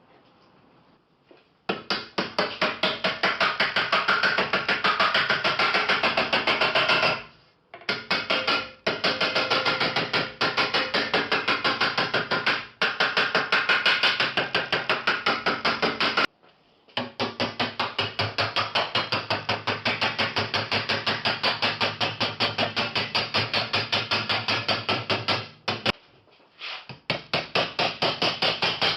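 Rapid, even hammer blows on ringing metal, about four or five strikes a second, in several runs broken by short pauses.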